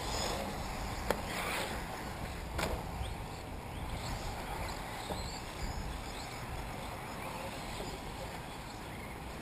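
Faint high whines rising and falling from 1/8-scale electric RC buggies racing on a dirt track, over a steady low rumble, with two sharp clicks about one and two and a half seconds in.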